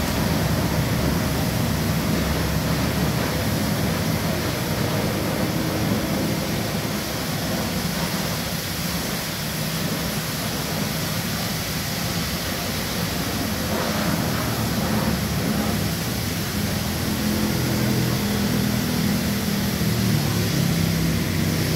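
Car-wash pressure washer running: a steady hiss of water spray over a low motor hum.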